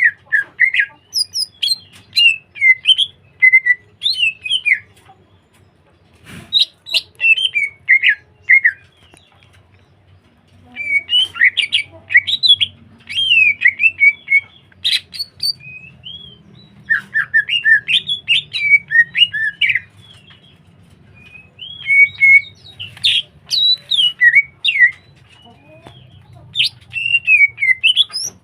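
Cucak hijau (greater green leafbird) singing in full voice: fast, warbling phrases of chattering, up-and-down notes, delivered in bursts of two to four seconds with short pauses between them.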